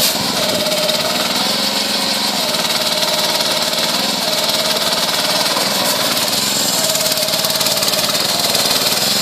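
Small engine running steadily with an even, unchanging note; a sharp click right at the start.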